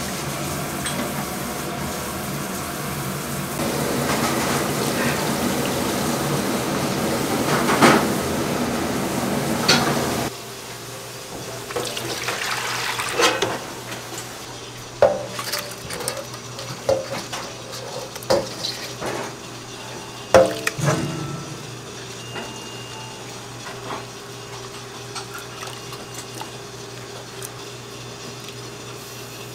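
Commercial kitchen work: a steady rushing noise for about the first ten seconds stops suddenly. After that come scattered clinks and clatters of dishes, pans and utensils.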